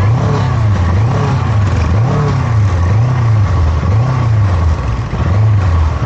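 Sport motorcycle engine revved up and down over and over, about once a second.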